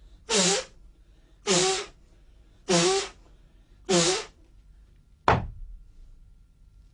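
Four forceful breaths forced out about a second apart, each a short, voiced huff, one with each movement of the Emei Paida Gong breathing exercise; then a single sharp thump about five seconds in.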